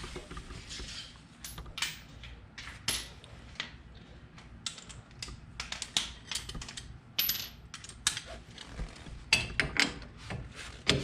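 Metal hand tools, wrench and sockets, clinking and clicking irregularly against each other and the bolts, some strikes leaving a short high metallic ring.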